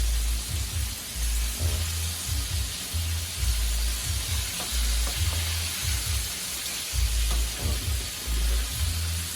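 Seasoned, floured chicken wings deep-frying in hot oil with a steady sizzle, under background music with a heavy, rhythmic bass.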